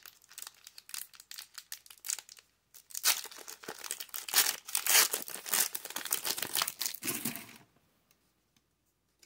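A Pokémon booster pack's foil wrapper crinkling and tearing as it is opened by hand. Light crinkles come first, then after a short pause a louder stretch of crinkling and tearing that stops about three-quarters of the way through.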